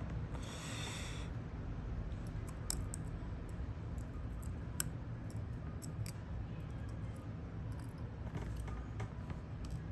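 Small hand tool clicking and scraping against an Apple Watch's cracked rear sensor glass while it is pried off, with a brief scratchy rasp about half a second in and scattered light clicks, over a steady low hum.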